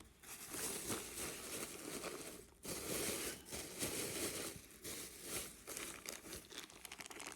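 Plastic bag crinkling steadily as it is handled, with a short pause about two and a half seconds in.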